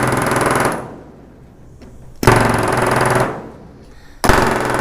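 3X pneumatic rivet gun set to about 25 psi, hammering solid rivets into the wing skin against a tungsten bucking bar, in three bursts of rapid blows about a second long each.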